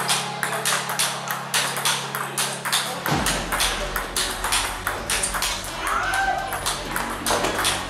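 Table tennis balls being hit back and forth in a multiball drill: quick sharp clicks of the ball off the paddles and bouncing on the table, several a second.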